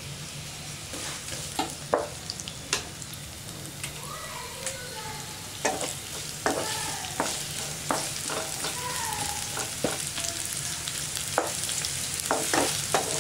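Sliced red onions sizzling in hot oil in a non-stick frying pan as a spatula stirs them, with sharp knocks and scrapes of the spatula against the pan. The sizzle grows louder about halfway through.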